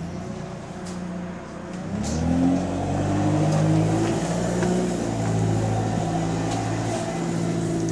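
Bus diesel engine pulling away: its note rises about two seconds in, then holds steady under load. The bus has an exhaust leak.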